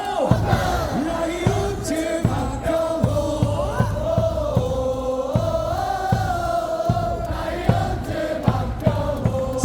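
Baseball stadium crowd singing a cheer song in unison, backed by a steady drum beat about every three-quarters of a second.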